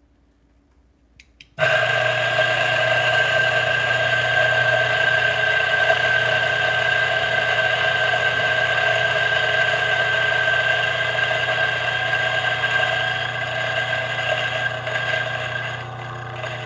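Electric coffee grinder starting suddenly about a second and a half in and running steadily, grinding beans straight into a portafilter through a dosing funnel. Its steady motor whine drops a little in level near the end.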